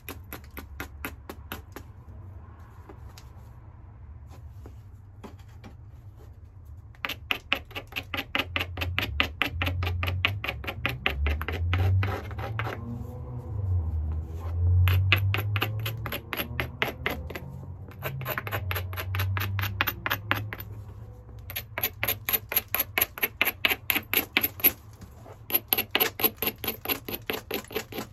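A rounded hammerstone worked rapidly against the edge of a hornstone flake to abrade and prepare it: fast, scratchy stone-on-stone clicking in runs of a few seconds, with short pauses between runs.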